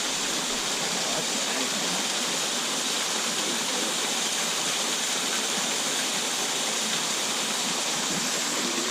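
Steady rush of a fast mountain creek, water tumbling over small falls and through plunge pools.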